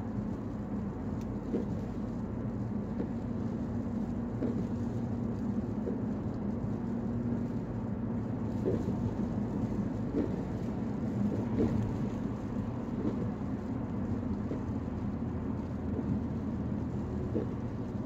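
Steady road noise inside a car's cabin at highway speed: a continuous low rumble of tyres and engine, with faint, irregular ticks over it.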